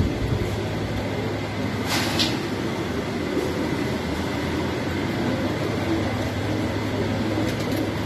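A loft full of domestic pigeons cooing, over a steady low hum. There is a brief rustle about two seconds in.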